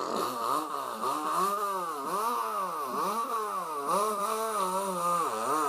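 A person imitating a weed eater (string trimmer) engine with his voice: a buzzing hum that rises and falls in pitch over and over, about twice a second, like the engine being revved after starting.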